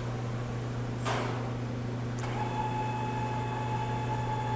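Steady low machinery hum in a production kitchen. About a second in there is a brief rush, and a little after two seconds a click starts a steady high whine.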